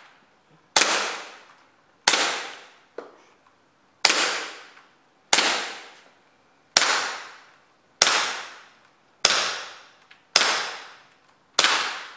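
Sig Sauer P226 gas blowback gel blaster firing single shots in steady succession: nine sharp cracks about one and a quarter seconds apart, each dying away over about a second.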